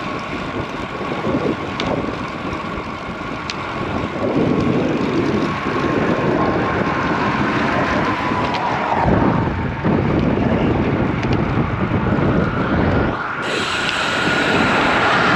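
Wind buffeting the microphone on a moving road bike, gusting up and down over steady road noise, with a faint steady whine that slowly drops in pitch.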